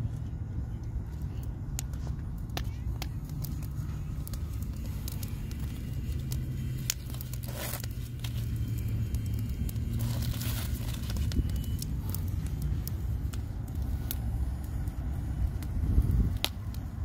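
Wood fire crackling and popping in an open fire pit, scattered sharp snaps over a steady low rumble.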